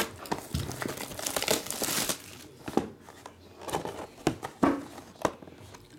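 Plastic shrink wrap crinkling and tearing as it is pulled off a sealed trading-card box. After that come a few light taps and clicks of cardboard as the box lid is lifted.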